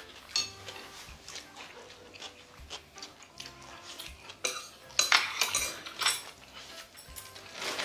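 Wooden chopsticks tapping plates and small ceramic cups clinking on a wooden table during a meal, with chewing. A short run of louder clatter comes about five to six seconds in, and another clink near the end.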